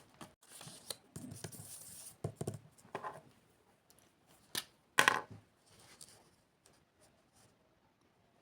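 Paper being handled and cut with scissors: rustling and scraping, then two sharp snips about four and a half and five seconds in, the second the loudest.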